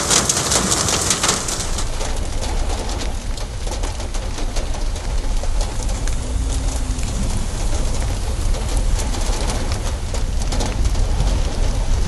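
Rainstorm noise: a steady hiss of heavy rain and running runoff over a deep low rumble. The hiss is brightest in the first second or two.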